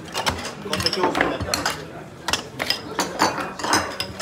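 Metal tongs clinking against a perforated metal steamer tray and ceramic bowls as steamed dumplings are lifted and served out: a quick, irregular series of sharp clinks, with voices murmuring behind.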